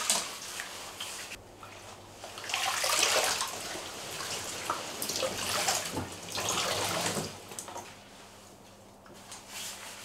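Water sloshing and splashing in a bathtub as curtains soaked in cleaning solution are stirred and lifted out of the water. The splashing is loudest from about two and a half to seven seconds in, then eases off.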